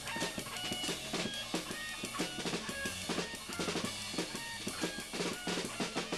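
Live rock band playing: a drum kit pounded in a fast, busy pattern of kick drum and snare, with a guitar sounding underneath.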